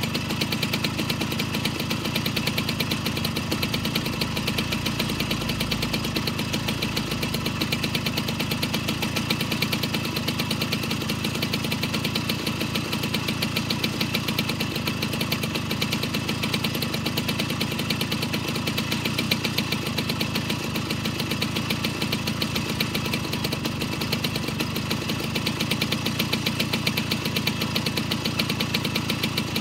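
1977 Jawa Pionýr 221.100 moped's 50 cc single-cylinder two-stroke engine idling steadily with a fast, even beat.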